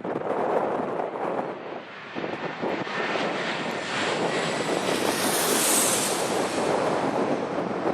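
Jet airliner passing low overhead, its engine whine rising to a peak about five to six seconds in, over strong wind buffeting the microphone.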